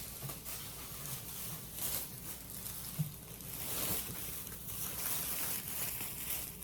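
Plastic bags rustling and crinkling as they are handled and opened, with one sharp tap about three seconds in.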